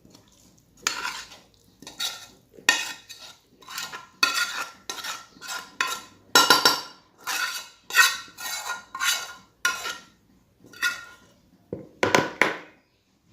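Metal spoon scraping and knocking against cookware in a long run of short strokes, about two a second, as prepared filling is scooped in and stirred; a short pause near the end.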